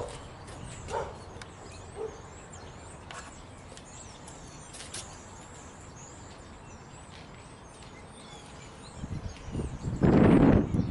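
Birds chirping faintly in the background, with a few soft knocks early on. Near the end a dog barks loudly.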